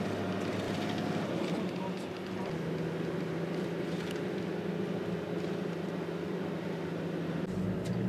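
Steady engine hum and road noise inside a moving vehicle. The low rumble grows stronger near the end.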